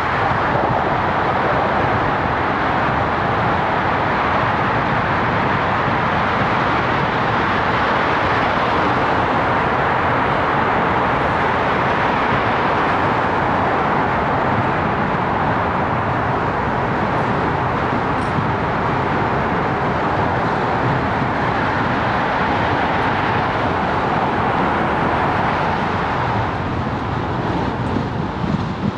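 Steady rushing wind and tyre noise from riding a bicycle at speed, picked up by a GoPro's microphone, easing slightly near the end.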